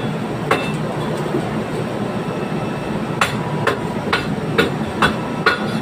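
Sharp metal knocks on the rusted metal of a cooling tower being taken apart, struck with a hammer. One blow comes about half a second in, then six more about every half second from about three seconds in. A steady background rumble runs underneath.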